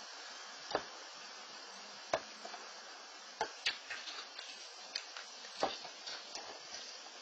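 About half a dozen sharp, irregular taps and knocks over the steady hiss of a security camera's microphone.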